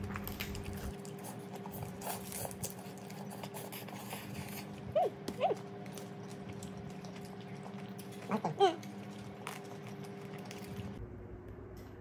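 A steady low hum under faint clicks and rustles of hands handling pizza in a cardboard box, with brief pitched vocal sounds, two about five seconds in and one near eight and a half seconds.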